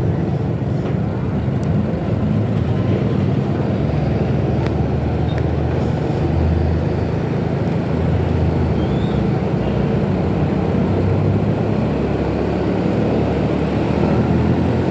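Steady low rumble of a moving motorcycle ride, engine and wind buffeting the microphone together in road traffic.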